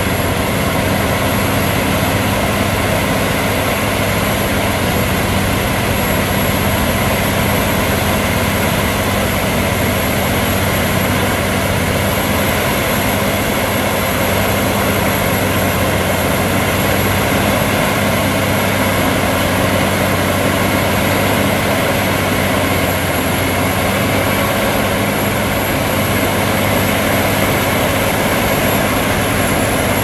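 Valtra S352 tractor's six-cylinder diesel running steadily at high revs under heavy load, driving a Valentini Demonio 2000 forestry tiller whose rotor churns through soil and roots.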